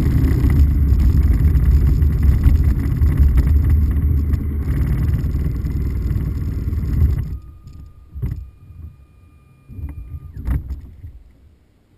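Motorcycle running, with wind rushing over the on-board camera microphone, cutting off abruptly about seven seconds in. A few faint knocks follow.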